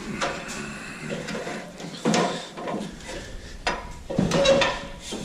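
Irregular knocks and clunks with shuffling: a person climbing down from a roof.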